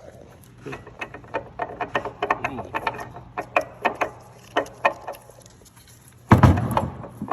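Irregular metallic clicks and clinks of hand tools over a faint low hum. About six seconds in, a much louder low rumble cuts in.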